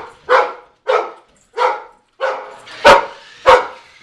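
Labrador barking repeatedly at a remote control truck: about five short, loud barks, each under a second apart.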